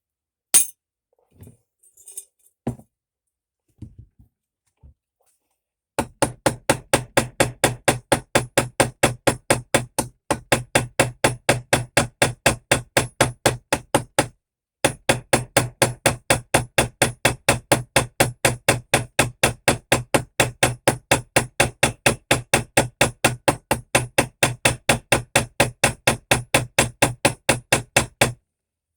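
Small hammer peening a pin on a pocketknife being assembled: a fast, even run of sharp metal taps, about three or four a second, with two brief breaks. Before the run come a few light clicks as the parts are handled.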